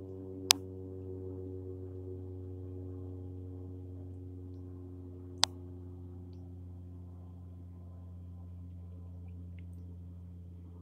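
Cessna 208 Caravan's single turboprop engine and propeller droning steadily overhead, slowly fading. Two sharp clicks sound, about half a second in and about five and a half seconds in.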